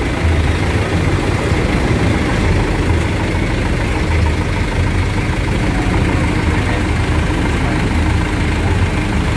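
Large tour bus's diesel engine idling steadily, a low, even rumble with no change in speed.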